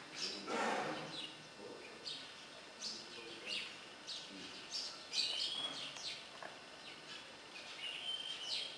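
Small birds chirping repeatedly, short high chirps with a couple of longer sweeping whistles, over a light background hush. A brief louder, lower sound comes about half a second in.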